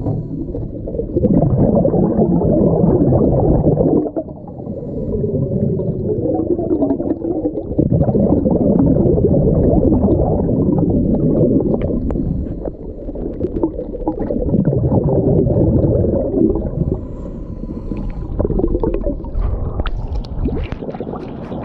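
Underwater bubbling of a diver's exhaled air from the regulator, heard close on the camera's microphone: muffled rushes lasting a few seconds, with short quieter gaps between breaths. Sharp clicks come in near the end.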